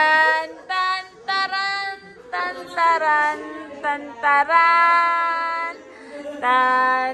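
A high voice singing a slow melody in phrases of long held notes, with little accompaniment heard.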